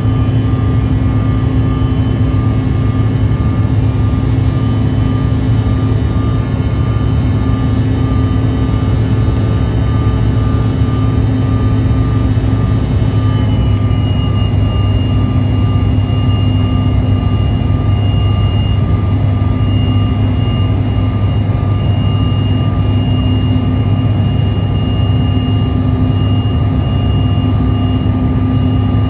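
Steady engine drone and air noise of a jet airliner climbing, heard inside the passenger cabin. About halfway through, the engines' high whine shifts slightly lower in pitch.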